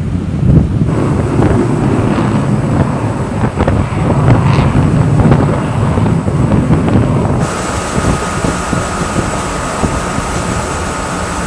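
Wind buffeting a microphone, with a heavy low rumble. About seven seconds in, the sound cuts to a steadier, brighter hiss carrying a faint steady hum.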